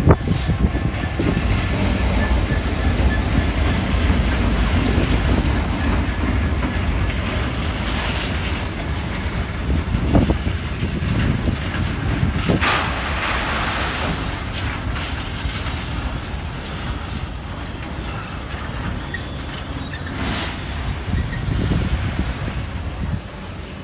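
Class 66 diesel locomotive's two-stroke V12 engine passes close at the start. A long train of container flat wagons follows, rolling by with a steady rumble of wheels on rail and a few knocks. From about six seconds in there is intermittent high-pitched squealing from the wagon wheels.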